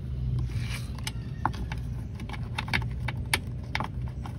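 Light, irregular metallic clicks and taps as the washing machine's belt-cover bolts are started by hand, over a steady low hum.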